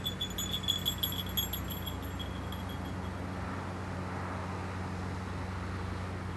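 Small falconry bell on a flying peregrine falcon, jingling in quick uneven shakes for about three seconds and then fading out, over a steady low hum.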